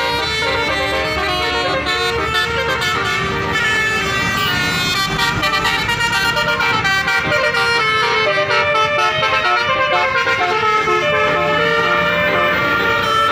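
Bus 'telolet basuri' musical horns playing a tune: several steady horn tones at once, stepping from note to note every fraction of a second.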